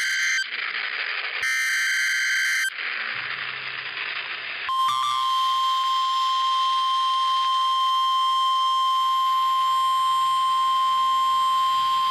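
NOAA Weather Radio alert signal heard through a radio receiver. First come two buzzy one-second data bursts of the digital alert header, separated by static hiss. Then, about five seconds in, the long steady warning alarm tone starts, marking the start of a new warning.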